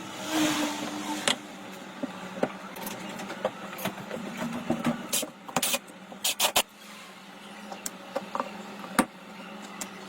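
Irregular sharp clicks and knocks, a dozen or so, over a steady low hum.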